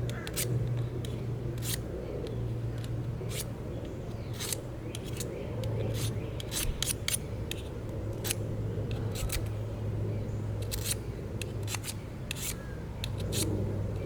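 A knife blade scraping old vane glue off an Easton FMJ arrow shaft: short, irregular scrapes and clicks, a few a second, over a steady low hum.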